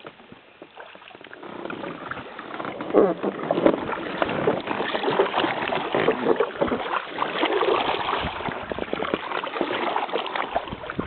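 Inflatable kayak under way, a Gumotex Twist 2: a dense crackle of water splashes and knocks starts about two seconds in and stays loud, mixed with rubbing and knocking from a hand on the camera.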